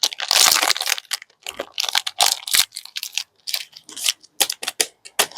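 Plastic candy wrappers crinkling and tearing: a dense rustling burst just after the start, then a run of short, irregular crackles.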